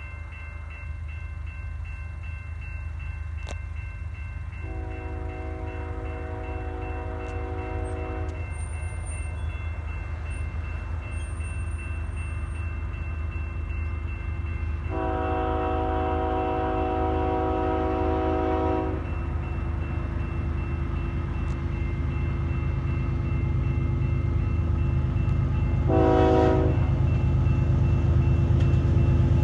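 Canadian Pacific diesel locomotive's air horn sounding for a grade crossing: a long blast, a second long blast, then a short one near the end. Under it, the crossing signal's bell rings steadily and the locomotive's rumble grows louder as it approaches.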